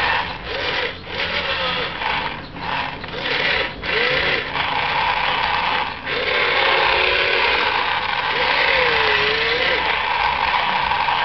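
The electric motors and gearboxes of a radio-controlled wheeled excavator whine as it works its boom and bucket. The sound comes in short stop-start spurts for the first several seconds, then runs steadily, with its pitch rising and falling.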